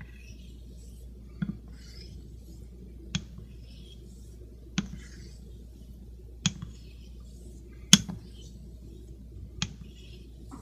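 Steel straight razor worked in strokes on a wet Shapton Pro waterstone while setting a new bevel: a sharp click about every one and a half seconds as the blade is flipped on its spine and set back down on the stone, each followed by a faint scrape of the stroke. The click about two-thirds of the way through is the loudest.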